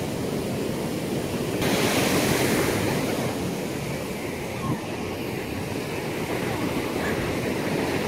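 Steady rush of surf and wind buffeting the microphone.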